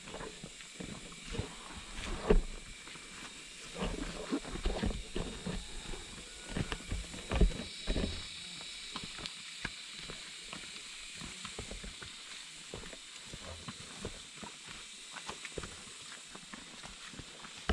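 Irregular thumps and rustles of someone walking along a hill trail, over a faint steady high hiss.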